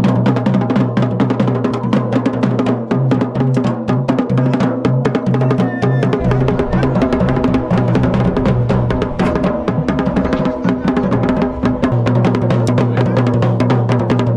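Garhwali dhol and damau drums played together in a fast, dense rhythm of continuous strokes. A deeper low tone comes in about six seconds in and drops away again at about twelve seconds.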